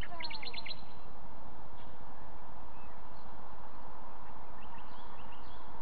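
Birds calling over a steady background hiss: a quick run of about six short high notes in the first second, and a few faint chirps near the end.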